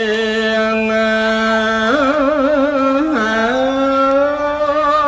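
A Buddhist monk's solo male voice chanting Khmer smot, the sung Buddhist recitation. He holds long notes, wavers through a melodic ornament about two seconds in, then steps the pitch up and holds it.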